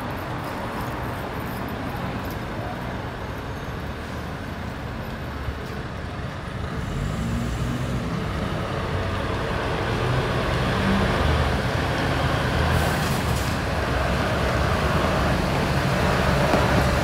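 Heavy tractor unit's diesel engine pulling a lowboy trailer loaded with a railway car, approaching slowly over road traffic noise; its low running grows louder from about seven seconds in.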